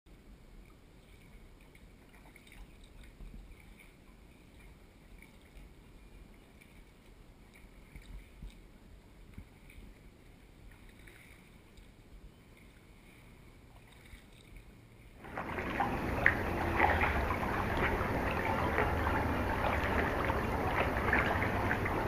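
Harbour water lapping and sloshing around wooden pier pilings, close to the microphone. It is faint for about fifteen seconds, then suddenly much louder and nearer, full of small crackling splashes.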